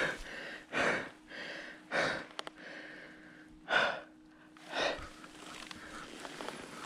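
A tired rider breathing hard, with about five heavy, noisy breaths a second or so apart, out of breath from riding. A faint steady hum runs underneath from about a second in to about six seconds.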